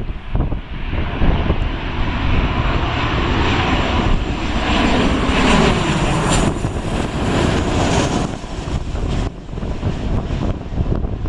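Boeing 737-800 jet engines passing close as the airliner comes in to land. The noise swells to its loudest around the middle, with a falling pitch as it goes by, over a low rumble of wind on the microphone.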